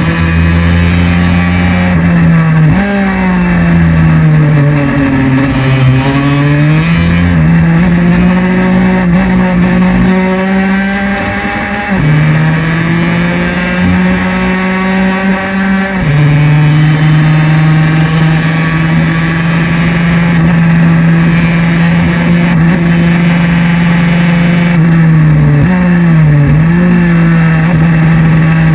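Racing scooter's engine running hard under the onboard camera, holding a steady high note. The pitch dips and climbs back as it slows for a bend about three seconds in and again near the end. The note breaks briefly twice in the middle.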